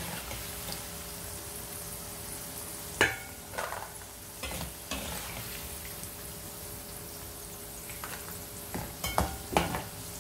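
Potatoes and peas deep-frying in hot oil in a kadhai, a steady sizzle. A steel slotted skimmer scrapes and knocks against the pan a few times as the pieces are scooped out, loudest about three seconds in and again several times near the end.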